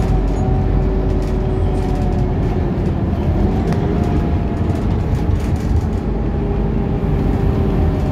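Scania articulated bus under way, heard from inside the cabin: a steady low engine rumble with a hum of several steady tones from the engine and drivetrain.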